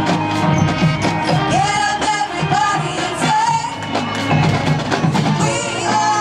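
High school marching band playing its field show: wind instruments carry a melody over drums and other percussion.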